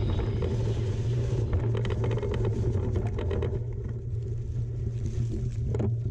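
Mountain bike riding a forest trail: a steady low rumble of wind and tyres on the ground, with a run of rattling clicks from the bike over rough ground about a second and a half in.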